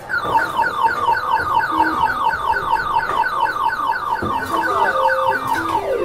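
Skee-ball arcade machine's electronic sound: a rapid, even run of short high beeps, about seven a second. A lower stepping beep melody joins about four seconds in.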